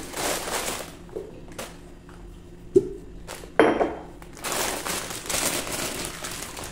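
Plastic granola bag crinkling as it is handled, with two sharp knocks from a glass jar and its lid set down on a granite countertop about three seconds in.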